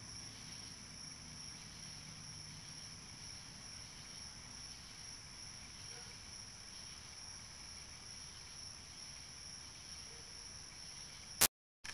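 Faint, steady high chirring of crickets on a summer night, heard through a security camera's microphone. Near the end a sharp click and a brief dropout where the recording cuts.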